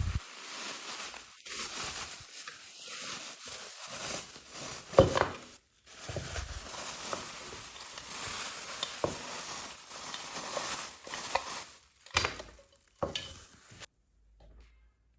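Packaging being handled: continuous crinkly rustling with scattered clicks and knocks, which stops abruptly near the end.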